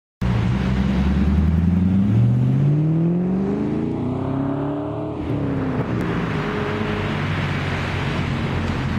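Ferrari 599 GTO's V12 engine pulling away under acceleration. The revs rise from about two seconds in, drop at an upshift just past the middle, then the engine runs on at lower revs as the car passes.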